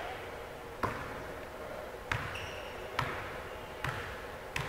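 A basketball being dribbled on a court, about five bounces roughly a second apart. There is a brief high squeak between the second and third bounces.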